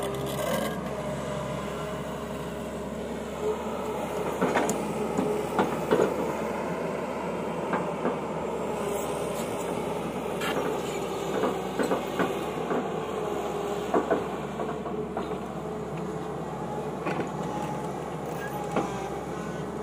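Tata Hitachi EX200LC crawler excavator working: its engine runs steadily with a faint wavering whine. Scattered sharp clanks and knocks come as the bucket digs through stony soil, a cluster of them about four to six seconds in and more around ten to fourteen seconds in.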